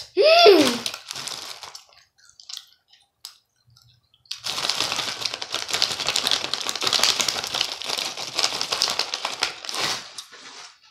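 Crinkly plastic Skittles bag handled and tipped up to pour the candy into the mouth. The crackling starts about four seconds in and stops just before the end, after a short falling vocal sound at the very start.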